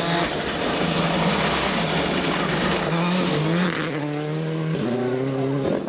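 Rally car engine revving hard at full load, its pitch climbing and then dropping at each gear change, several times in a few seconds.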